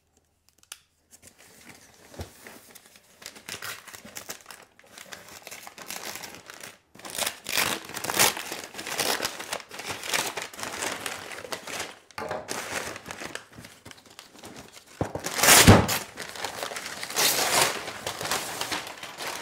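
Brown paper parcel wrapping being torn open and crumpled by hand, in irregular rustling bursts; the loudest burst comes about fifteen seconds in.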